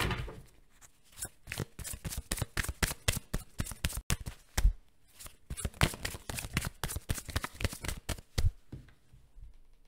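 Tarot cards being shuffled by hand: a quick run of papery flicks and slaps, several a second, that stops shortly before the end.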